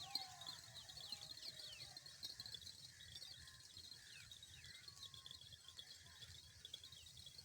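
Faint outdoor ambience: many small birds chirping in short falling notes over a steady high insect buzz.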